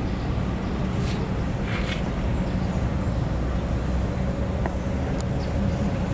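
Steady low rumble of city road traffic and engines, with no single event standing out.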